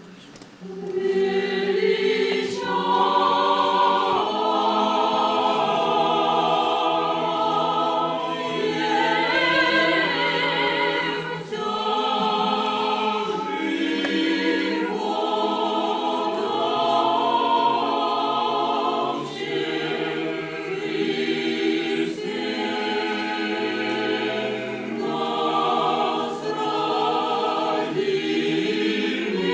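Choir singing a sacred hymn in long, sustained phrases of several voices, coming in about a second in after a brief hush.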